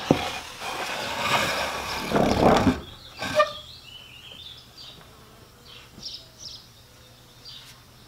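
Homemade wooden 2x4 screed board with 2x4 teeth dragged across a sand base, scraping the sand level for about three seconds, with a sharp knock as it starts and another just after. After that it goes quieter, with only faint high chirps.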